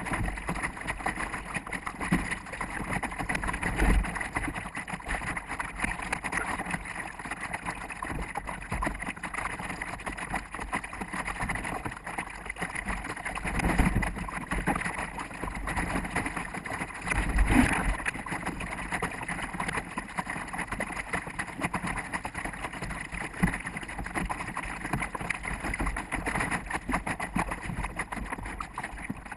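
Water rushing along a sailboat's hull and wind buffeting the bow-mounted microphone, sped up fourfold, with a few louder thumps from the bow meeting waves.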